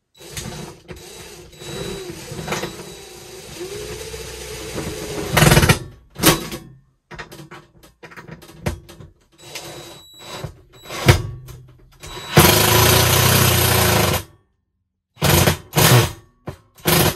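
Cordless drill-driver driving a screw through a sauna heater's steel mounting bracket into the wall, its motor whirring with wavering speed at first, then in several short trigger bursts and one longer run of about two seconds. The screw is hard to line up with the bracket's hole, so it is started again and again.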